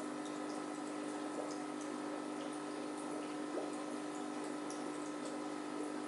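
Aquarium pump running: a steady electric hum over the constant bubbling and trickling of tank water, with faint drips or bubble pops now and then.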